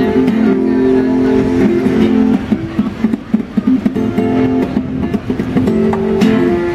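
Acoustic guitar played flat across the lap and amplified through a small amp: held, ringing notes, then a softer stretch of quicker, choppier notes in the middle, then held notes again near the end.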